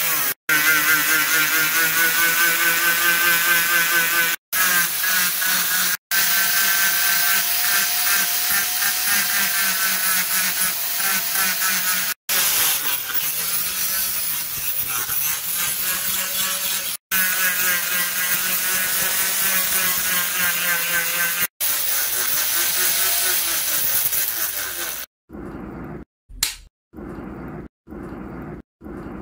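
Electric angle grinder running with a steady high whine as it sands a wooden axe handle and grinds steel, its pitch sagging briefly under load and cutting off abruptly several times. About 25 seconds in, the grinder stops and a series of short, evenly spaced hammer knocks follows as the axe head is fitted onto its handle.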